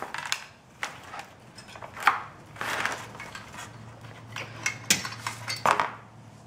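A metal mini-basketball rim and scissors clinking and knocking against a cardboard backboard as they are handled, with a few sharp clicks scattered through and a short stretch of rustling about two and a half seconds in.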